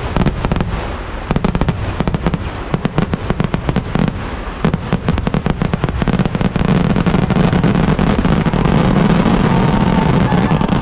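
Kerala temple-festival fireworks (vedikkettu) going off in a dense barrage: rapid, closely spaced bangs that merge into a continuous rumble about halfway through.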